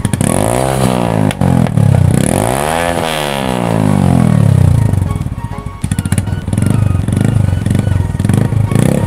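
Single-cylinder engine of a TVS Apache RTR 160 2V motorcycle revving through a loud aftermarket Akrapovic-style exhaust. It is blipped twice, the pitch rising and falling each time, then keeps running at lower revs.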